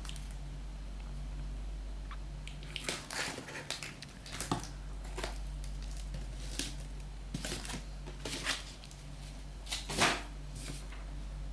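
Keyboard box and packaging being handled and opened: scattered taps, scrapes and rustles of cardboard and plastic, the sharpest about ten seconds in, over a steady low hum.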